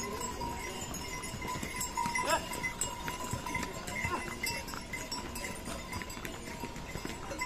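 Saddled mules and ponies on a stone-paved trail, their neck bells ringing and hooves clopping, among the chatter of a crowd of walkers.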